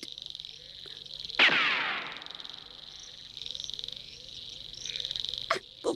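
Cartoon soundtrack of crickets chirring steadily. About a second and a half in, a sudden whoosh falls steeply in pitch.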